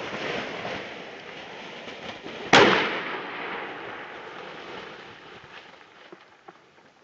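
A single loud shot from a side-by-side double-barrel shotgun about two and a half seconds in, sharp, with a short fading tail. Before and after it, wind noise and rustling on the microphone.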